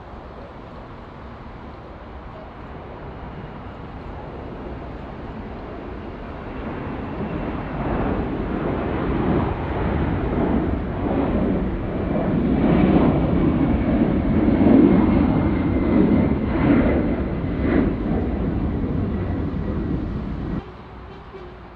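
Large jet airliner's engines passing close by, a low roar that builds for several seconds to a peak, with a faint high whine slowly falling in pitch, then cuts off suddenly near the end.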